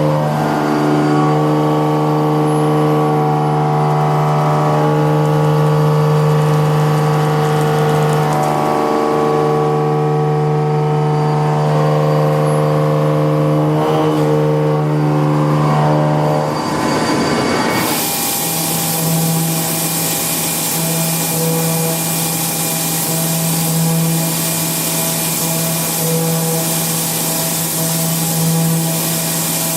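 Indexable milling cutter with LNGX/LNGU tangential inserts cutting metal on a milling machine: a steady pitched hum that breaks off briefly twice, the second time just before a loud hiss joins it about 18 seconds in.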